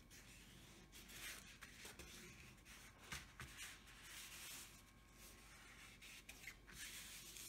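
Faint, irregular swishes of hands rubbing and pressing across a diamond painting canvas under its cover sheet, smoothing out creases and bubbles.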